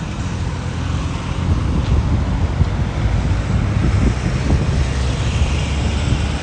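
Wind buffeting a small handheld camera's microphone during a run, a loud, uneven low rumble, over the hiss of traffic on a wet road.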